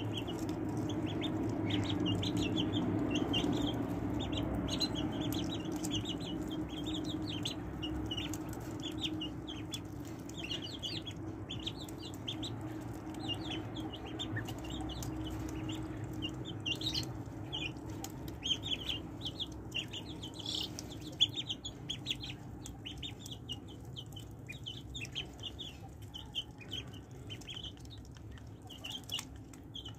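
Domestic ducklings peeping constantly in quick, high-pitched calls while feeding, over a low steady hum that fades after about halfway.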